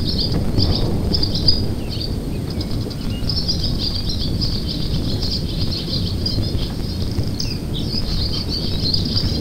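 Outdoor ambience: high chirping in quick bouts, over a steady low rumble.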